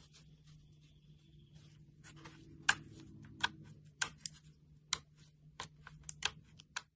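Clear slime being worked by hand with pigment and glitter mixed in, giving irregular sharp clicks and pops. The clicks are sparse at first and come thick and fast from about two seconds in.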